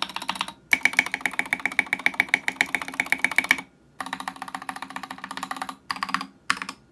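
Fast typing on an Akko 3061S mechanical keyboard with Ducky Cotton Candy SA keycaps and prelubed Gateron Pink switches: rapid key clacks in several runs, broken by short pauses about half a second in, about three and a half seconds in, and near the end.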